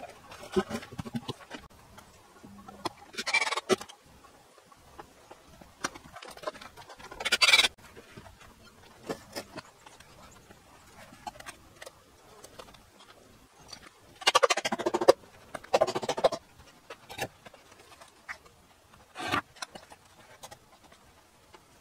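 Scattered knocks, clatters and scrapes of wooden beams being handled and set in place. There are a few louder scrapes about seven seconds in and again about fifteen seconds in.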